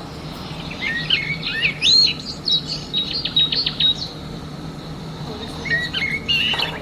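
Small birds chirping and twittering in quick, varied phrases, with a run of rapid notes in the first few seconds and more calls near the end, over a faint steady low hum.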